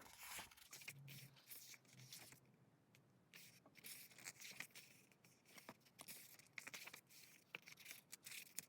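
Faint paper handling: pages of a K-pop album photobook being turned and rustled, with scattered soft ticks and crinkles.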